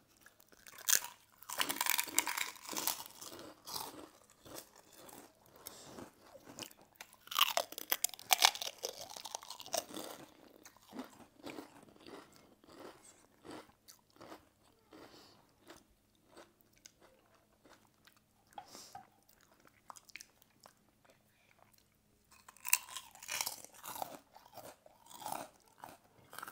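Two people biting into and chewing crisp fried crackers: loud crunching in three spells (about a second in, around seven to ten seconds, and near the end), with quieter chewing between.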